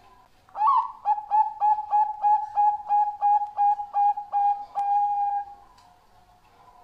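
Zebra dove (Bangkok-bred perkutut) cooing. It gives one opening note, then a quick, even run of about a dozen short coos at three to four a second, and closes on one longer held coo.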